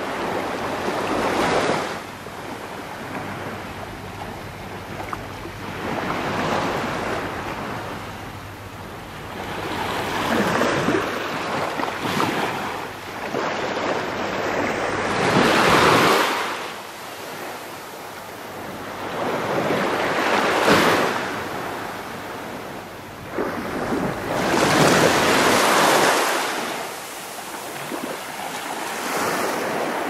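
Sea surf: waves breaking and washing up the shore one after another, each one swelling and falling away, about every four to five seconds.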